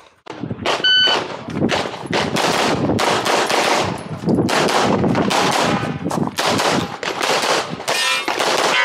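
A shot timer's start beep, then a fast run of pistol shots in quick strings with brief pauses between them, as the shooter works through a USPSA stage.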